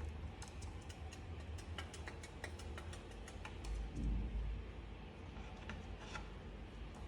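Indian ringneck parrot making a series of small, sharp clicks, several a second, then a second short run of clicks near the end. A low thump comes about four seconds in.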